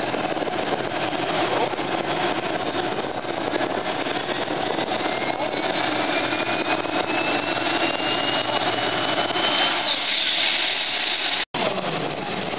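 Modified multi-engine pulling tractor running loud, with a thin high whine that climbs slowly in pitch for several seconds. The sound breaks off for an instant near the end.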